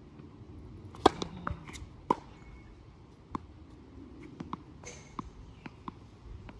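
Tennis ball bounced on a hard court before a serve: a string of sharp, irregularly spaced thuds, the loudest about a second in.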